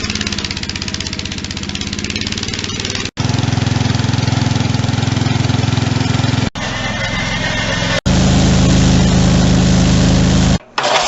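Engine running steadily in several short clips joined by abrupt cuts, its speed and loudness changing from clip to clip.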